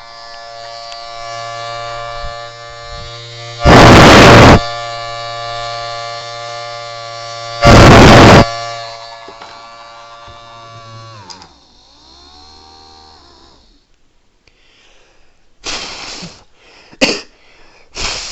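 A small 3D-printed Thunderbolt-style siren with a dual-tone chopper spins on its electric motor, giving a steady many-toned whine over a motor hum. Two hard blows into its intake, about 4 and 8 seconds in, come out as loud rushing blasts but barely make the siren louder, because the chopper vanes are made wrong. About 11 seconds in the tone winds down with a falling pitch, and several short bursts of noise follow near the end.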